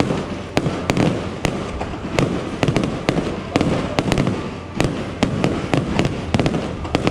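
Aerial fireworks bursting overhead: a rapid, irregular string of sharp bangs and pops, several a second, over steady crackling.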